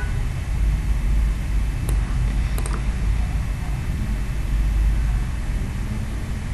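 Steady low background rumble, with a few faint mouse clicks about two seconds in.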